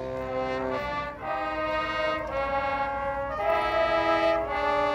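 Marching band horn line playing a series of held brass chords, each lasting about a second, with a brief dip in level about a second in.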